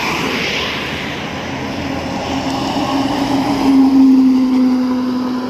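A bus driving past on a highway: engine hum and tyre noise, loudest about four seconds in as it passes.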